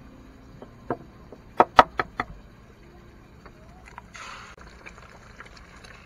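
Light clicks and taps of cooking gear at a frying pan on a portable gas stove: one about a second in, then a quick run of four about one and a half to two seconds in, followed by a short hiss about four seconds in.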